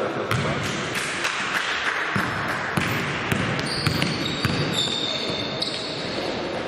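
Basketball game sounds in a gym: a basketball bouncing on the court in repeated knocks over a noisy, echoing hall background, with high squeaks of sneakers on the floor from about halfway through.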